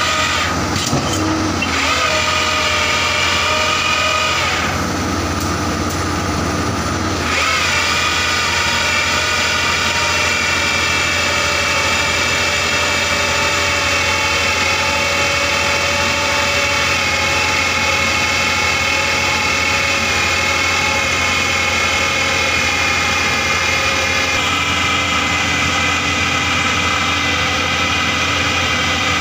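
Bauer BG 25 rotary bored-pile drilling rig running: a steady diesel engine hum under a loud, high hydraulic whine. The pitch steps up with a short upward glide about seven seconds in and shifts again near the end.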